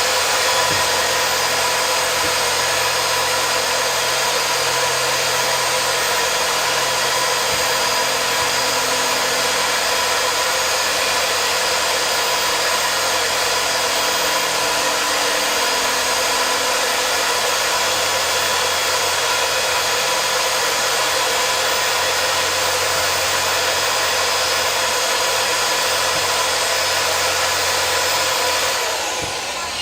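Small electric motor running steadily, a constant whine over a rushing hiss, dying away near the end.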